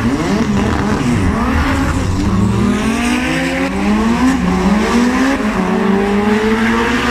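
Opel drag race car launching off the line and accelerating hard down the eighth-mile strip. Its engine pitch climbs and drops back again and again as it shifts up through the gears.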